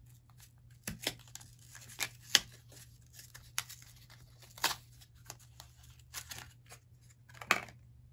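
Plastic makeup packaging and products being handled: a series of irregular sharp clicks and taps, with some rustling, the loudest about two and a half seconds in.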